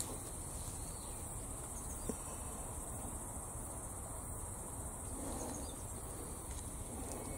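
A steady, high-pitched chorus of insects chirring in the woods. A few soft rustles are heard over it, the clearest about five seconds in, as someone pushes on foot into the undergrowth.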